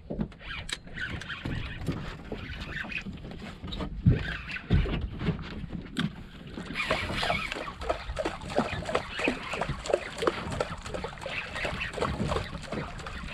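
Water lapping and slapping against the hull of a small fishing boat, with wind on the microphone and many short knocks and clicks that grow busier from about seven seconds in.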